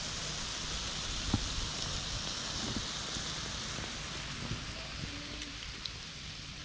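Hot oil sizzling steadily in a frying pan around Jamaican fried dumplings, with a few small pops and one sharp pop about a second and a half in.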